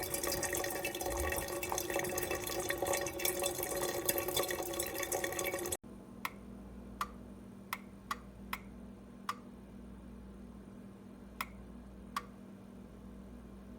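Bonavita 8-cup pour-over coffee maker brewing: a steady rush of water running through it for about six seconds, which stops abruptly. Then single drips fall at uneven intervals, about eight in all, over a faint steady hum.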